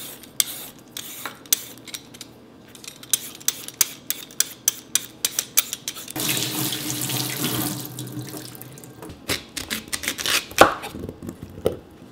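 Vegetable peeler scraping the skin off a Korean sweet potato in quick short strokes. About six seconds in, a steady rushing hiss lasts nearly two seconds.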